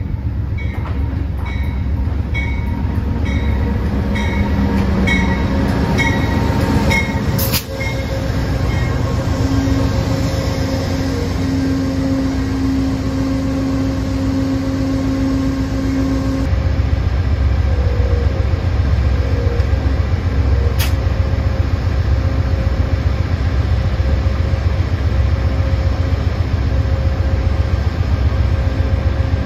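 Amtrak passenger train led by a GE P42DC diesel locomotive pulling into a station and rolling past, with a bell ringing about twice a second over the first several seconds and a steady high tone from the train for a few seconds after. From about halfway the locomotive's diesel engine runs steadily as it stands at the platform.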